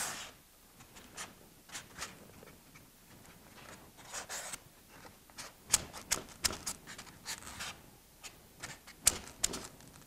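Hands handling and pressing EPS foam trim pieces against a foam wall: scattered light clicks and taps, with a short rub about four seconds in.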